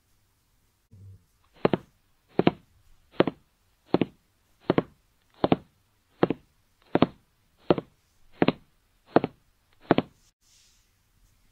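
An edited-in rewind sound effect: twelve evenly spaced knocking ticks, about four every three seconds, starting a little under two seconds in and stopping about ten seconds in.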